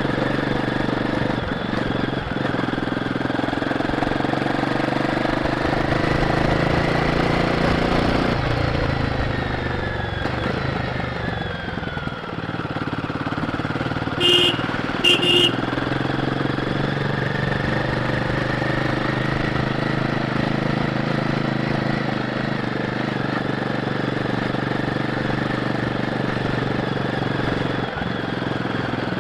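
Royal Enfield Guerrilla 450's single-cylinder engine through its stock exhaust, pulling with rising pitch, easing off and sinking, then picking up again as the bike is ridden. Midway, two short horn beeps about a second apart.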